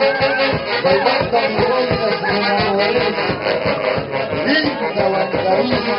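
Live band playing a huaylash, an Andean dance tune, with a quick steady beat.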